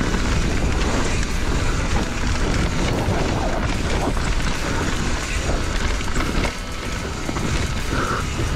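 Mountain bike descending a trail at race speed: a dense, low rumble of wind on the microphone and tyres over rough ground, with frequent small knocks and rattles from the bike.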